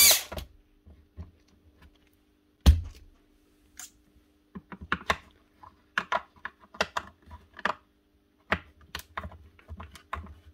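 Hard plastic clicking and knocking as the plastic housing of a Milwaukee M18CV cordless vacuum is handled and its end cover worked loose: one sharp knock about two and a half seconds in, then a run of irregular clicks.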